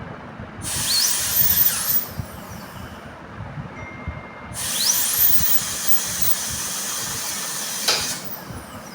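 Dental drill grinding down sharp tooth cusps, run in two bursts, a short one and then a longer one. Each burst starts with a high whine rising in pitch as the handpiece spins up and ends with the pitch falling away as it stops.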